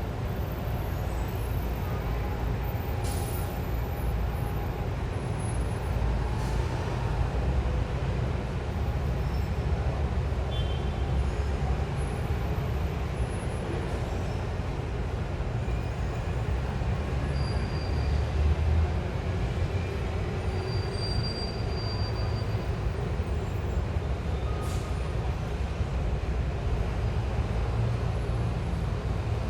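City street traffic heard from eight floors up: a steady low rumble of passing vehicles, with a few brief faint squeals and clicks.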